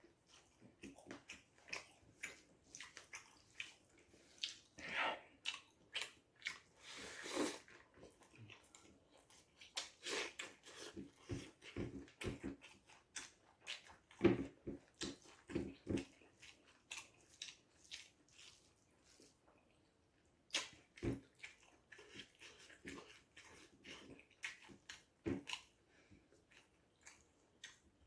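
Irregular light clicks and knocks, several a second in clusters, with a short lull near the middle.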